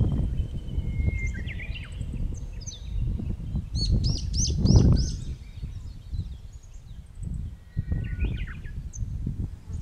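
Wind gusting on the microphone with songbirds calling over it. A quick run of about six high chirps comes about four seconds in, and shorter calls come near the start and near the end.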